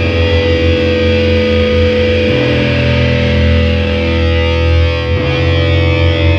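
Metal band playing live, loud distorted electric guitars holding long chords. The chords change about two seconds in and again about five seconds in.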